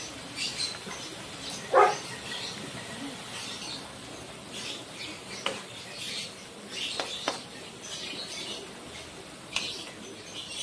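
Wooden spatula stirring and tossing sliced bitter gourd and pork in a non-stick pan: repeated soft rustling scrapes with a few sharp clicks of the spatula on the pan. A short, louder pitched sound about two seconds in.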